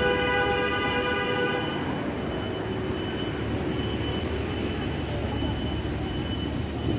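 Street traffic rumbling steadily, with a single held horn note that cuts off about a second and a half in.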